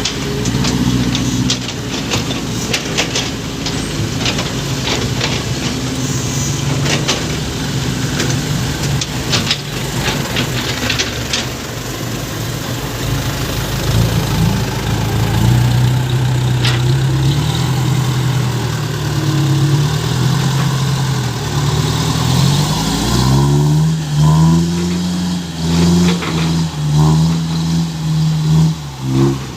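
Small six-wheel truck's engine running, with clicking and rattling early on. In the last several seconds it is revved up and down repeatedly.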